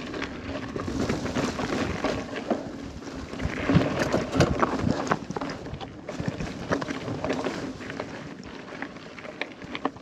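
Mountain bike clattering over a rough, stony trail: tyres knocking on rocks and the bike rattling in a dense, uneven run of knocks, with a harder knock about four seconds in.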